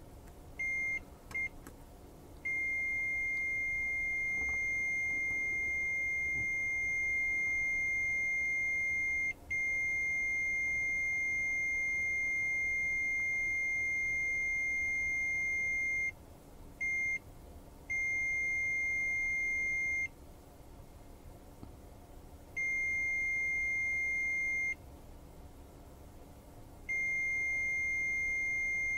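Mustool MT111 multimeter's continuity beeper giving a steady high-pitched beep that switches on and off several times: two short blips, two long stretches of several seconds, then shorter beeps of about two seconds each. It sounds only while the resistance across the probes is below its threshold of about 50 ohms.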